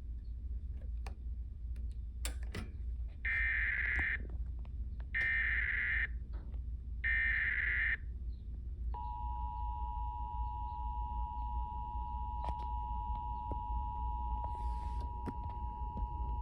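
Emergency Alert System tones relayed over FM radio: three one-second bursts of buzzing digital header data about a second apart, then the steady two-tone attention signal starting about nine seconds in and holding, with a low hum underneath.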